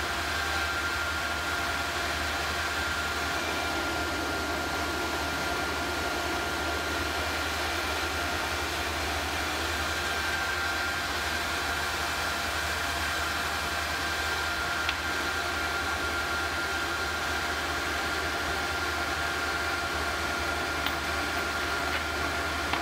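Small induction heater running as it melts bronze in a graphite crucible: a steady hum and hiss with a thin, even whine, and a few faint ticks near the end.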